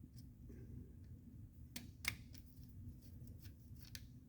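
Faint scattered clicks and light handling noises from vent-window parts and a hand tool being worked, about half a dozen small ticks with the sharpest about two seconds in, over a low steady hum.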